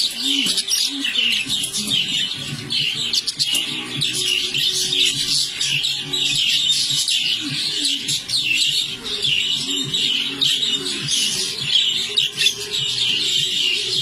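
Several budgerigars chattering and warbling, a continuous stream of rapid chirps.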